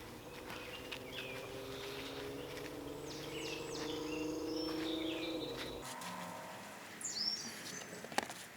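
Songbirds chirping in short, high calls over a steady low hum, with a sharp click near the end.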